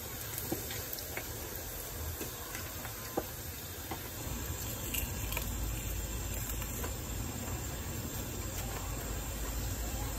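Hot oil sizzling steadily around small tamban fish deep-frying in a pan, the fish nearly crispy and browning. A few light clicks of chopsticks stirring in the pan.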